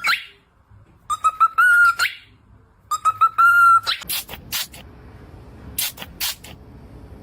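A parrot whistling the same phrase twice: a quick run of short notes ending on a held, slightly rising note. Several short, harsh screeches follow.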